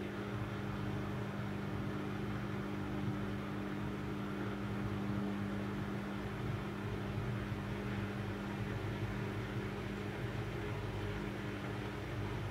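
Midea front-loading washing machine running during a prewash cycle: a steady motor hum with a noisy whir over it.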